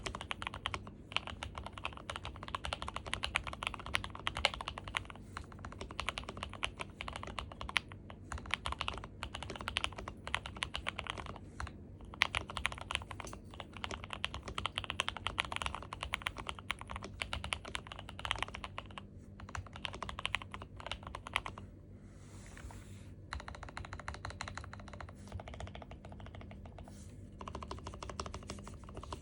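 Fast, continuous typing on a gasket-mounted Dukharo VN66 custom mechanical keyboard with a steel plate, a PE-foam and tape mod, and lubed and filmed NK Silk Emerald switches. The keystrokes come as a rapid, irregular run of clicks, with a brief lull about three-quarters of the way through.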